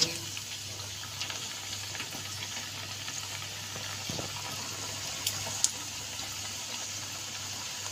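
Hot oil in a kadhai sizzling steadily as handfuls of raw maida dough pieces for namak pare are dropped in and begin to deep-fry. Two brief sharp clicks come about five seconds in.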